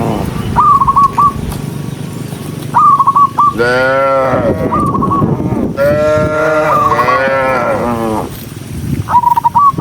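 Several cattle mooing, with long overlapping moos whose pitch bends up and down from about a third of the way in until near the end. Under them is a steady low rumble, and a short, high trill of three or four notes recurs every couple of seconds.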